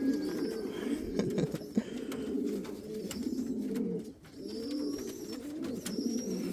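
Domestic fancy pigeons cooing, several birds overlapping in a steady run of low, rolling coos.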